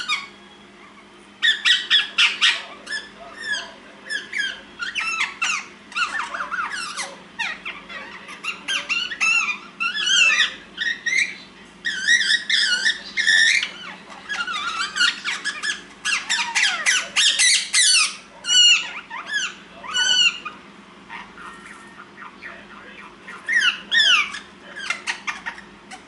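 Indian ringneck parakeets chattering to each other at rest, a busy run of short squeaky chirps, whistles and squawks that rise and fall in pitch. The calls come in bursts, with a lull of a couple of seconds about three-quarters of the way through.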